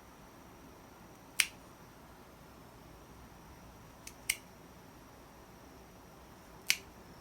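Nail clipper snipping through a cat's claws: three sharp clicks a couple of seconds apart, the middle one with a fainter click just before it.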